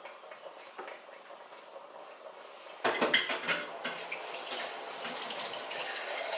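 Clinks of a cup and dishes about three seconds in, then water running from a kitchen tap to fill a cup.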